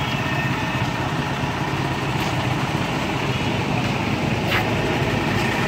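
Road traffic: vehicle engines running as cars and motorcycles pass, a steady mixed noise, with one short sharp click about four and a half seconds in.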